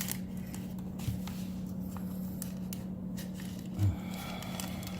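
Blue painter's tape and folded newspaper being handled and pressed down by hand: scattered small clicks and rustles, with a soft low thump just before the end, over a steady low hum.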